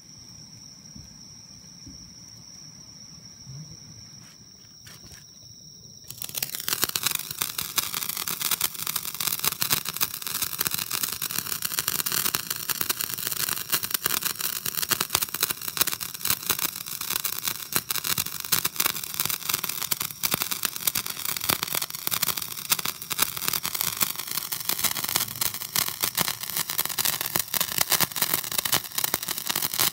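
A handheld sparkler firework burning, giving off a dense, continuous crackle of rapid pops and fizzing as it throws sparks. It starts abruptly about six seconds in, after a quieter stretch with a faint steady high whine.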